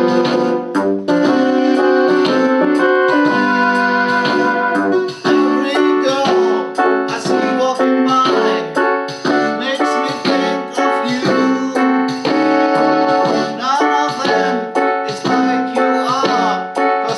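Electronic keyboard playing in a piano-like voice: held chords at first, then about five seconds in a quicker passage of short notes with some sliding pitches.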